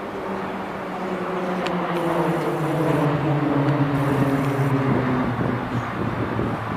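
KT-1B Woong Bee turboprop aircraft flying past overhead: the propeller drone swells to its loudest a few seconds in while its pitch falls steadily as they pass, then eases off.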